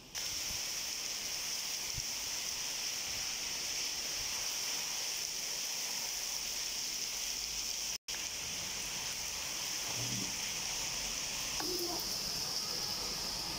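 Heavy rain pouring down, a steady dense hiss, with a momentary dropout a little past halfway.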